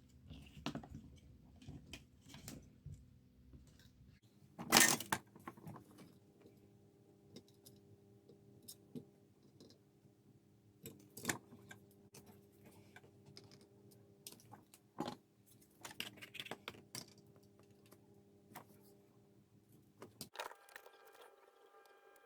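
Small clicks and light metallic rattles of handling, with one louder sharp clack about five seconds in, over a faint steady hum.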